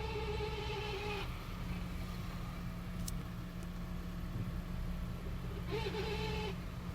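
A car's 7-speed dry-clutch DSG gearbox making its abnormal noise: a buzzy, wavering whine heard twice, about a second long at the start and again briefly near the end, over the steady engine and road rumble.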